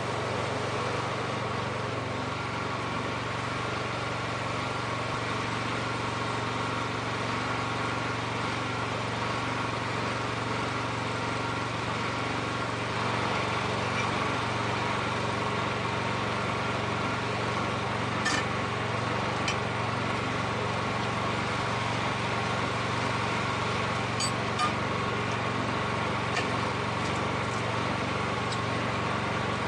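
Wood-Mizer portable band sawmill running steadily, its engine holding an even note, with a few faint clicks.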